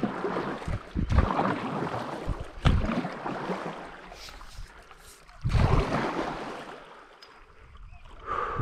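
Stand-up paddleboard paddle strokes in river water: several swelling swishes of the blade pulling through the water, with a quieter pause of a couple of seconds before the last stroke.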